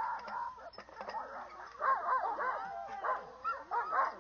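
A yard full of sled-dog huskies calling together: many high, wavering dog voices overlapping in yips and whines, growing louder and busier about two seconds in.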